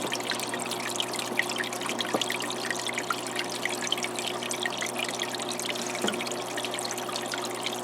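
Water from a paludarium's waterfall outlet splashing and trickling steadily into the tank, with many small splashes. A faint steady hum runs underneath.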